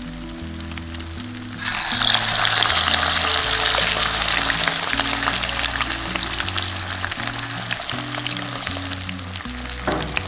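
Tofu deep-frying in hot oil that is foaming up after a water-based marinade has been added. It sizzles loudly from about a second and a half in, then slowly eases as the water cooks off. One sharp click near the end, over background music.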